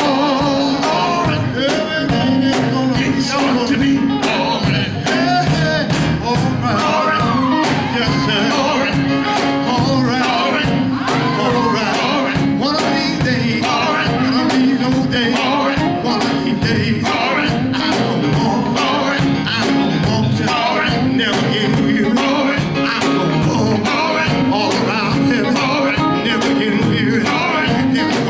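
Live gospel quartet music: a band plays a steady beat with drums while voices keep singing.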